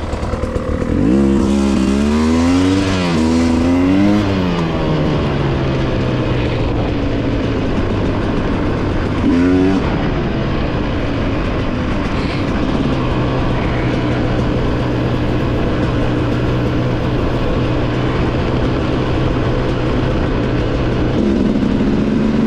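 Two-stroke dirt bike engine being revved up and down a few times, with one more short rev partway through. It then runs at a steady pitch and picks up again near the end.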